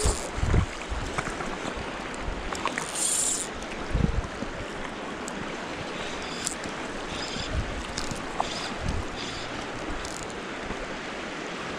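Steady rush of fast-flowing creek water, with a few brief low thumps.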